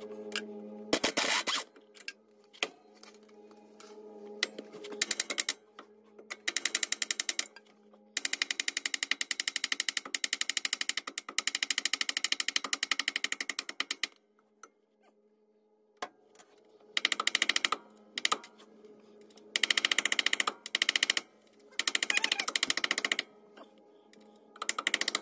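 An impact wrench hammering in repeated bursts, the longest about six seconds, loosening and running out the bolts that hold a front lower control arm to the frame.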